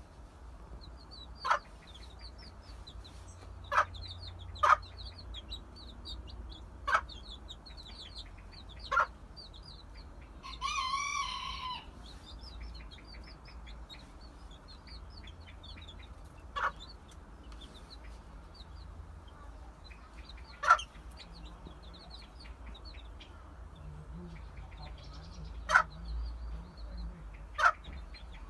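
A mother hen with her chicks: the chicks peep continuously in quick, high cheeps, and the hen gives a short, sharp cluck every few seconds. Around ten seconds in, one longer, drawn-out call of a bit over a second stands out.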